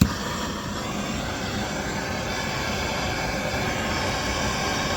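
A gas torch lights with a sharp pop, then its flame hisses steadily as it heats a rusted exhaust manifold bolt.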